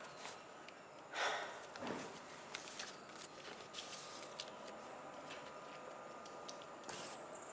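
Quiet background with faint paper rustling and small handling clicks as a sheet of paper is held and turned over, and a soft breath-like rush about a second in.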